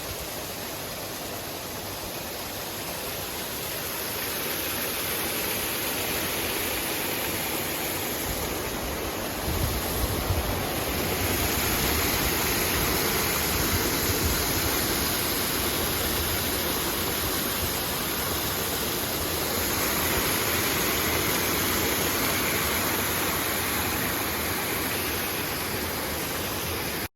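Spring water running and splashing, a steady rushing that grows louder a few seconds in, with a few low bumps about ten seconds in.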